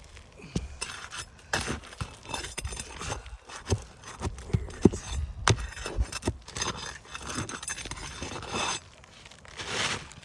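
Flat pry bar scraping under asphalt shingles and knocking against roofing nails as they are pried out: an uneven run of sharp clicks, knocks and scrapes.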